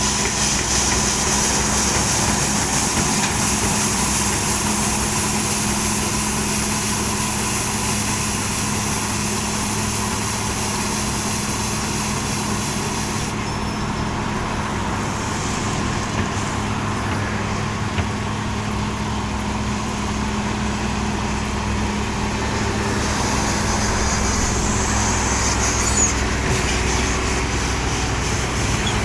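Heavy road-works machinery running steadily, a deep engine hum with a hiss on top that drops away about halfway through and returns near the end.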